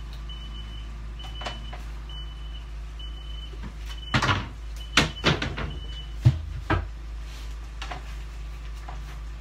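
Kitchen cabinet and the things inside it being handled, with a run of knocks and clatters from about four to seven seconds in, the loudest near the end of that run. A short high beep repeats about once a second under a low steady hum and stops about six seconds in.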